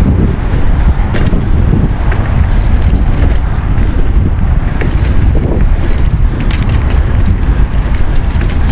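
Wind buffeting an action camera's microphone on a mountain bike rolling along a dirt trail, a steady loud rumble, with a few brief clicks and rattles from the bike.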